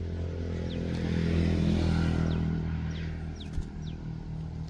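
An engine runs steadily, growing louder about a second in and then easing off again. Several short high falling chirps come and go over it.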